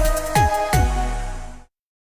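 Electronic TV news logo music sting: three synth hits, each with a falling sweep in the bass, over held tones, fading and then cutting off suddenly about one and a half seconds in.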